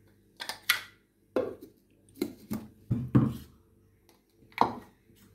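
Steel kitchen vessels, a glass tumbler and a mixer-grinder jar and lid being handled: a series of about eight sharp clinks and knocks.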